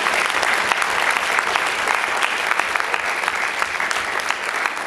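Audience applauding: many hands clapping in a dense, steady mass.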